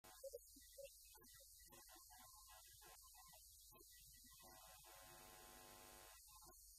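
Near silence: a steady low electrical hum.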